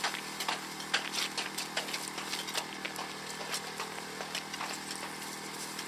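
A steady machine hum runs throughout, with irregular knocks and scrapes of poles and ice at a hole cut in lake ice.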